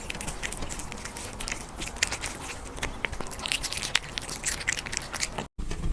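A silver shaded British Shorthair cat crunching and chewing food close to the microphone, with many quick crackling bites at an irregular pace. The sound breaks off for an instant near the end.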